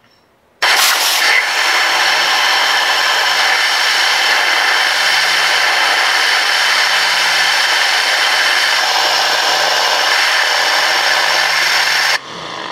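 Compressed air at 100 PSI blasting through a DIY 3D-printed air turbine as it spins: a loud, steady rushing hiss with faint whining tones in it. It starts suddenly about half a second in and cuts off abruptly near the end when the air is shut off.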